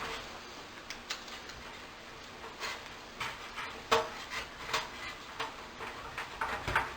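Scattered light clicks and taps of hands working on a space heater's casing, taking out its screws.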